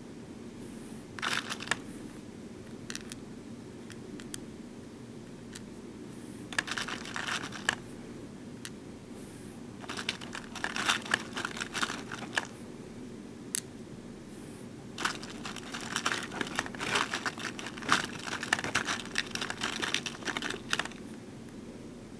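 Small plastic BeadOs beads clicking and rattling as fingers pick them out and press them onto a plastic pegboard template. The clicks come in several bursts of quick taps over a faint steady low hum.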